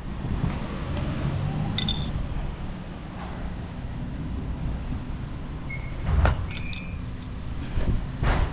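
A few light metallic clinks and clicks, one about two seconds in and a cluster near the end, over a steady low rumble.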